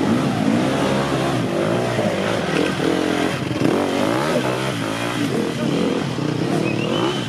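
Enduro dirt bike engine revving up and down over and over, its pitch rising and falling, as it labours up a steep, rooty climb.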